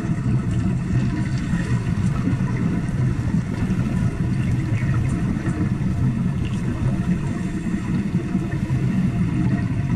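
Wet stick-welding arc burning underwater: a continuous rough, crackling buzz with no breaks, heard through the water.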